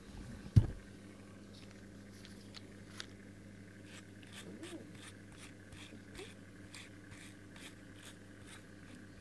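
A single sharp thump about half a second in, then a run of soft clicks, two or three a second, as a cat licks and nibbles at a pink rubber grooming brush.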